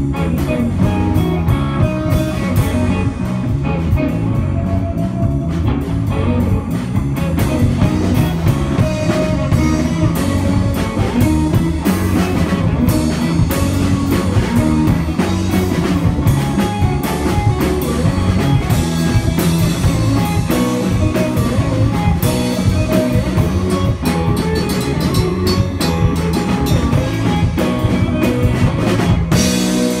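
A rock trio playing live: electric guitar, electric bass and drum kit, loud, with a steady drum beat throughout.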